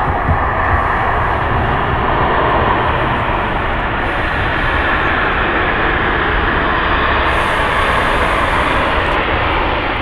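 Boeing 737-800's CFM56-7B jet engines running loud and steady as the airliner rolls out after landing on a wet runway, with spray thrown up around the engines.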